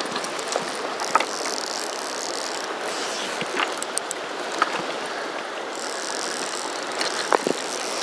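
Steady rush of a fast-flowing river, with a few scattered sharp clicks and ticks over it.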